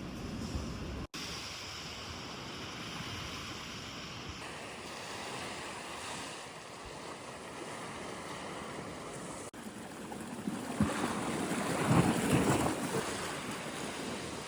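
Sea waves washing onto the shore with wind buffeting the microphone. One wave swells louder about eleven to thirteen seconds in.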